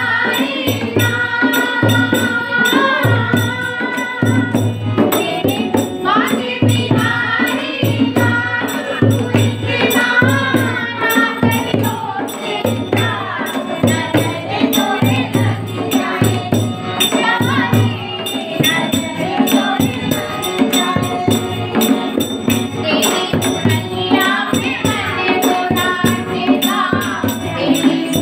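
Group of women singing a Hindi Krishna bhajan together, with hand-clapping keeping a steady beat.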